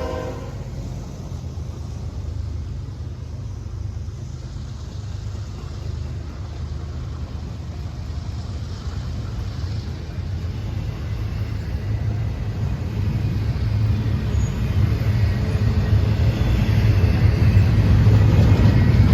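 Diesel locomotives of an approaching freight train: a low engine rumble that grows steadily louder through the second half.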